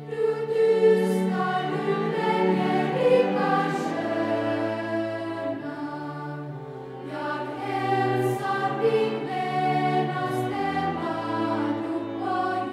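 Background music: a choir singing held chords, dipping softer around the middle before rising again.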